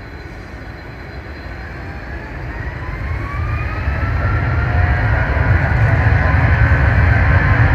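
Boeing 757-200 jet engines powering up for takeoff: a whine that climbs steadily in pitch over a deep rumble, the whole sound growing louder.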